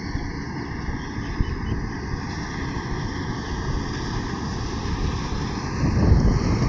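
Combine harvester running steadily as it harvests wheat, a continuous engine and machinery rumble that grows louder about six seconds in.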